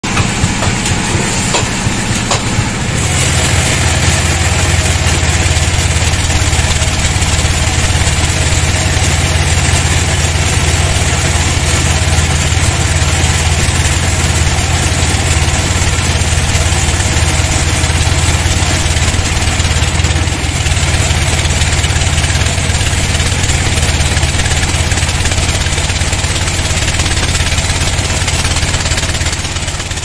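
Band sawmill running, its blade sawing lengthwise through a teak log: a loud, steady machine hum with a rushing cutting noise over it, growing louder about three seconds in.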